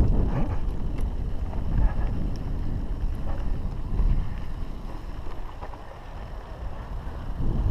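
Wind buffeting the camera microphone over the rumble of a downhill mountain bike's tyres on a dry dirt trail, with short clicks and knocks from the bike over bumps. It eases off briefly about six seconds in, then builds again near the end.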